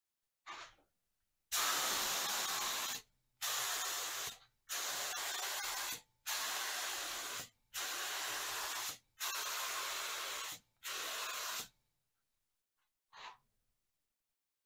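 Gravity-feed spray gun hissing as it sprays finish in seven passes of about a second each, the trigger released briefly between them. Short test bursts come just before the passes and again near the end.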